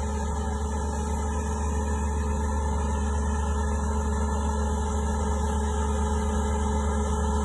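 Fiat 180-90 Turbo DT tractor's turbocharged diesel engine running steadily at constant revs, a deep even hum with no change in pitch.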